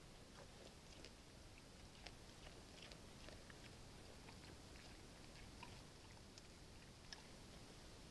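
Faint crunching and chewing of a bear eating bait from a feeder box: scattered soft clicks and crackles over a steady low hiss.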